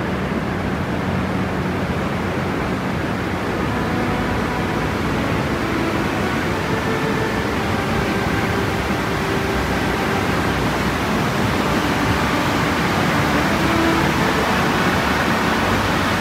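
Rushing water of the Chaudière River rapids and falls: a steady, even rush that grows slightly louder near the end.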